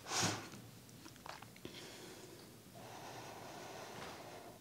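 A short puff of breath near the start, then faint room tone.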